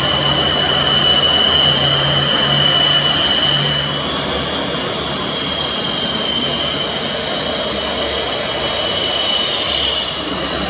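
MiG-29 jet engines running with a steady high whistle over a rushing roar; the whistle shifts slightly higher about four seconds in.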